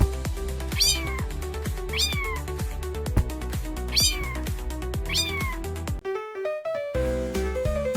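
A cat meowing four times over background music with a steady beat, the meows spaced like a looped meme sound. About six seconds in, the meows stop and a short run of different tones plays before the music carries on.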